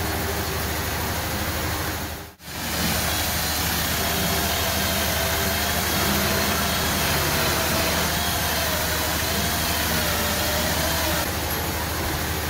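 Handheld cordless drill boring into a steel square tube, its motor whine wavering under load, over a loud steady rushing noise of shop machinery. The sound drops out briefly about two seconds in.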